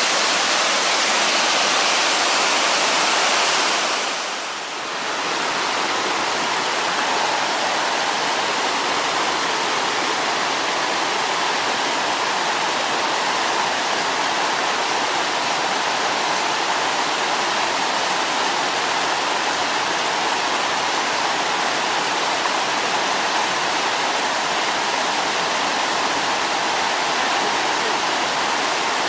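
Mountain stream and cascade rushing over rocks, a steady hiss of white water. The level dips briefly about four and a half seconds in, then the rush goes on evenly.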